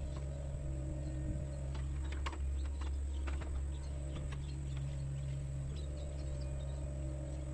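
Sunward mini excavator's diesel engine running steadily, with scattered light clicks and knocks.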